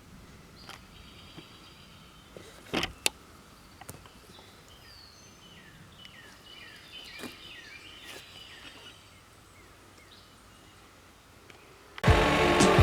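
Quiet outdoor background with small birds chirping and a few sharp knocks. About twelve seconds in, a loud, steady machine sound cuts in abruptly, the homemade sawmill running.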